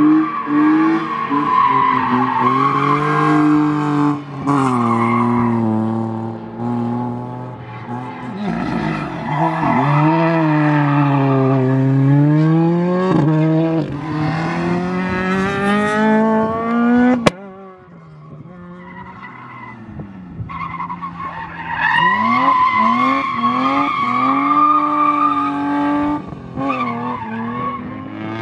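Rally car engines revving hard and easing off around a tight course, the pitch climbing and falling again and again with each gear change and lift, with tyres squealing at times. About two-thirds of the way through the sound drops suddenly to a quieter engine, then builds up to hard revving again.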